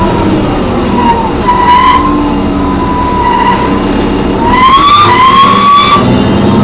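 High-pitched screech from a New Flyer D40LF transit bus, wavering in pitch and gliding upward about two-thirds of the way through, over the low rumble of the bus's diesel engine. The uploader puts the screech down to the brakes or the Voith transmission.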